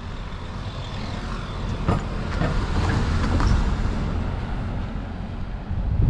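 A large engine rumbling as it passes close by, growing louder about halfway through and then easing off.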